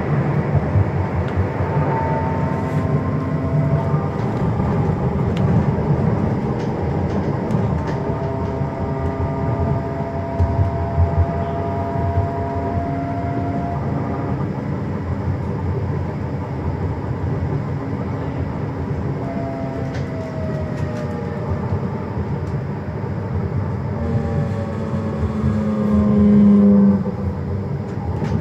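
Frankfurt tram in motion, heard from inside the car: a steady rumble of wheels on rail under the thin whine of the traction motors. The whine glides up in pitch, then falls about two-thirds of the way through as the tram slows. A louder low hum lasts a couple of seconds near the end.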